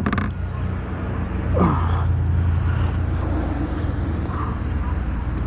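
Kayak's electric trolling motor humming steadily as it holds the boat in place on GPS spot lock, with a brief falling whine about a second and a half in.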